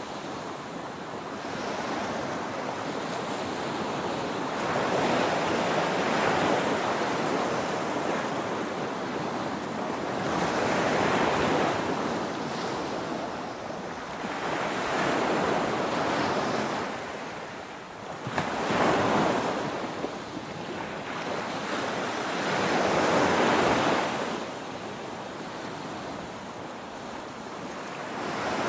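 Small waves breaking and washing up a sandy beach, the surf swelling and fading every four to five seconds, with one sharper break about two thirds of the way through.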